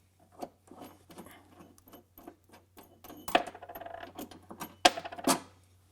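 Small metal tools and hardware clinking and clicking as a 1/2 inch socket and wrench are handled, with a run of quick ticks in the middle and two sharper metallic clinks near the end.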